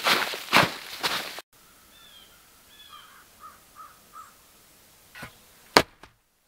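Boots scraping and kicking snow and leaf litter aside in quick repeated strokes for about the first second and a half. Then faint bird calls, a few short notes, and two sharp crunches near the end.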